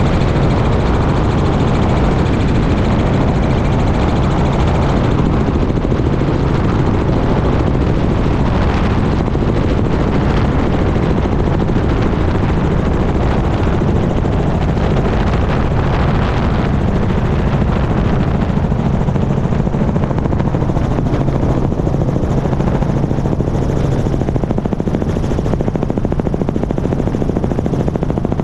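Helicopter in flight, heard from outside the fuselage: loud, steady rotor and engine noise with a low hum underneath.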